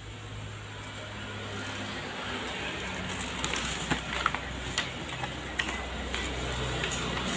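Paper and cardboard being handled: scattered sharp crinkles and taps from about three seconds in, over a steady low rumble that grows slowly louder.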